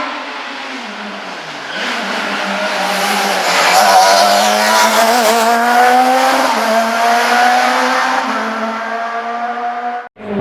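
Rally car engine under hard load, its pitch dipping early and then climbing slowly, with tyre squeal and skidding noise setting in about two seconds in and loudest around the middle. The sound cuts off abruptly near the end.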